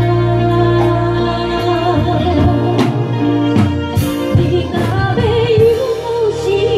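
A woman singing a slow Hokkien pop ballad into a handheld microphone, backed by a live band with keyboards, electric guitar, bass and drums, through a stage PA. A few cymbal and drum strikes mark the beat.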